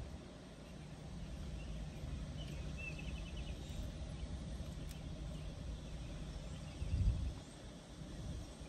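Steady low outdoor rumble, swelling briefly about seven seconds in, with a short bird trill about three seconds in.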